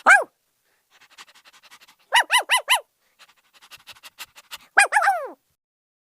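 A dog yelping in short, high calls that drop in pitch: one at the start, a quick run of four about two seconds in, and a last cluster near five seconds. Between the yelps are stretches of quick, faint panting.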